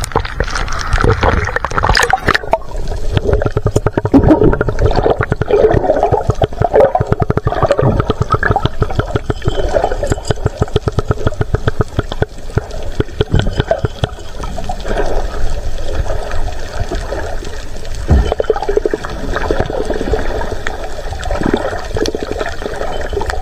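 Water splashing and gurgling around a camera as it goes under about two seconds in, then muffled underwater rushing and bubbling.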